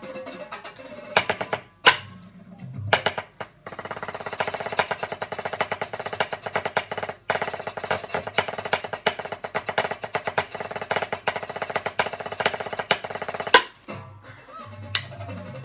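Snare-style drumming with drumsticks: a few loud single hits in the first few seconds, then a long run of fast, dense strokes with a brief break in the middle. It ends on a loud accent followed by lighter, sparser strokes.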